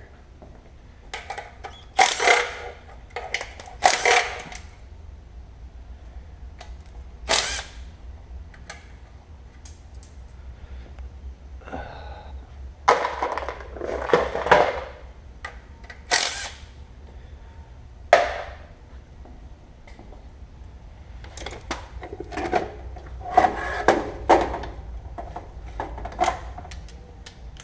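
Metal hand tools and parts clinking and clanking during engine teardown work: wrenches and sockets knocked against metal and set down in scattered sharp knocks, some with a short metallic ring, over a steady low hum.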